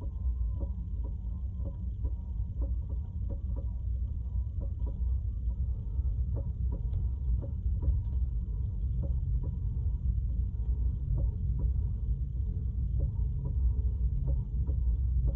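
Tesla Model 3 rolling at 7 to 8 mph: a steady low rumble inside the cabin with a regular run of short knocks, about two or three a second. The owner reports this as a repeated thump that comes when easing on and off the accelerator.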